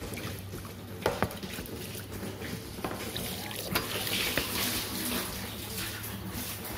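Water from a hose pouring through the mesh strainer into a plastic sprayer tank, splashing onto the mesh, filling the tank to rinse out leftover spray mix. The splashing grows louder about three seconds in, over a steady low hum, with a couple of sharp knocks about a second in.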